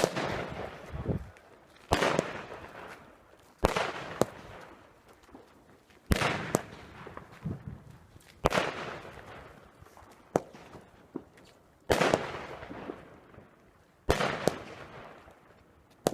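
Fireworks going off: a sharp bang about every two seconds, each one trailing off in a fading hiss and crackle.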